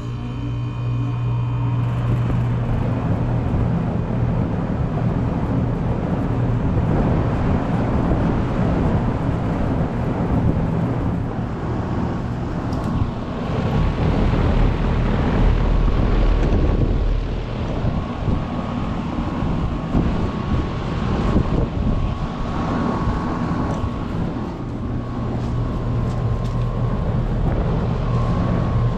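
2002 Bryant Quantum Plus air conditioner's outdoor condensing unit starting up and running. The compressor gives a steady low hum, and the condenser fan's rushing air noise builds over the first couple of seconds and then runs on steadily.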